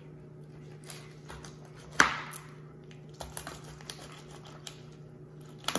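A knife chopping once, sharply, through a bluegill's head about two seconds in, followed by a few lighter knife taps and clicks, over a steady low hum.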